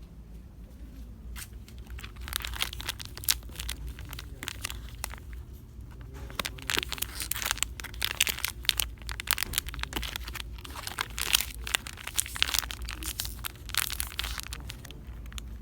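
Irregular crinkling and crackling of handled packaging, in dense bursts that begin about two seconds in, over a low steady hum.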